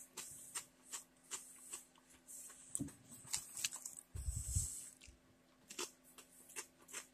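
Mouth-close chewing of hard kettle-cooked potato chips: irregular crisp crunches throughout, with a soft low thump just after four seconds in.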